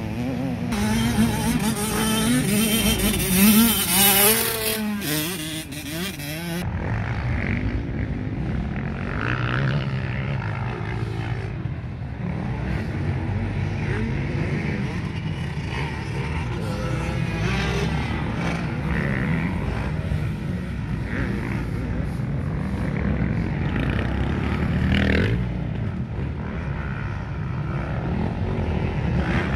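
Motocross dirt bike engines revving hard as the riders accelerate and shift, the pitch repeatedly climbing and dropping. About six seconds in, the sound turns duller and more distant: a steady engine drone with occasional revs.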